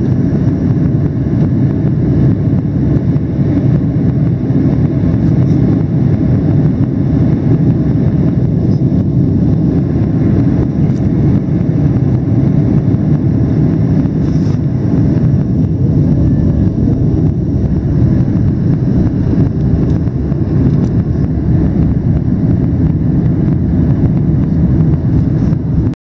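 Airliner cabin noise in flight: a loud, steady low rumble of the engines and the air rushing past the fuselage.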